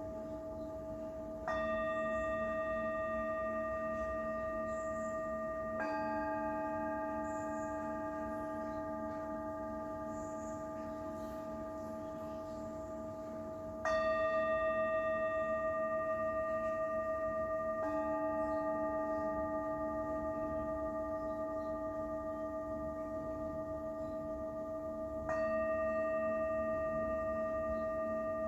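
Metal singing bowls struck one after another, about five strikes in all, each one ringing on long and overlapping the next.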